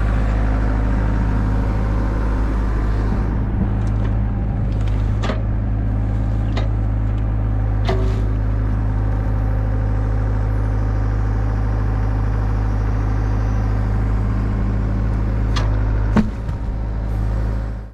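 Hyundai mini excavator's diesel engine running steadily while the hydraulics work the bucket and the rewelded thumb on a log, with several sharp knocks of the attachments against the wood.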